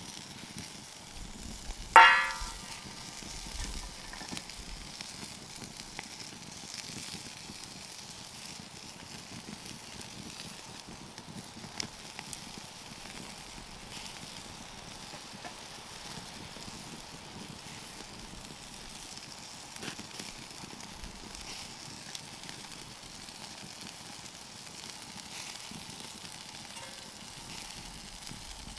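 Burger sizzling over a hickory wood fire, steady throughout, with the odd faint crackle. A single loud metallic clang that rings briefly comes about two seconds in.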